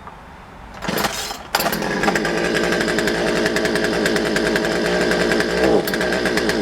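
Craftsman 42cc two-stroke chainsaw engine starting about a second in and settling into a steady idle; the saw runs but will only idle.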